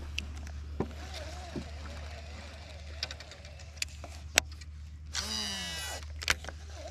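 Baitcasting reel's spool whirring briefly as a lure is cast, the whine falling in pitch as the spool slows, followed by a sharp click from the reel, over a faint steady drone.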